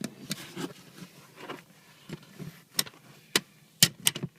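A tool prying at the plastic trim cover of a BMW E39 front seat: scraping and rubbing of plastic, then several sharp clicks and snaps in the second half as the snap-on cover is worked loose.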